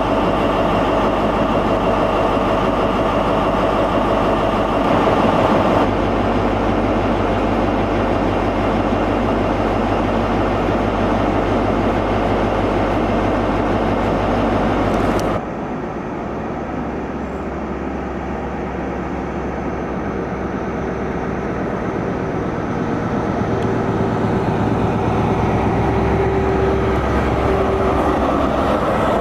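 Class 43 HST power car's diesel engine running steadily at a standstill. About fifteen seconds in the sound drops suddenly and changes, then grows louder again as the train's diesel engines work and the train pulls away.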